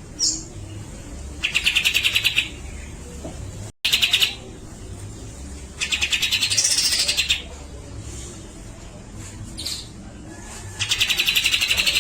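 Grey-cheeked bulbul (cucak jenggot) singing: four rapid rattling chatters about a second each, with short high whistled notes between them.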